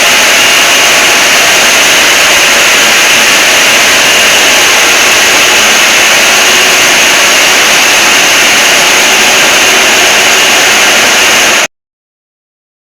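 Extremely loud, distorted static noise at close to full volume, a steady hiss heaviest in the upper range with faint steady tones buried in it, as used in ear-blasting fake emergency-alert edits. It cuts off suddenly near the end.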